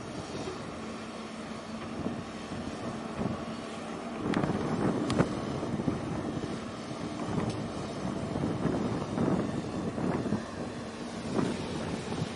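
Low steady engine drone of a large container ship passing close by, with wind gusting on the microphone and growing louder from about four seconds in.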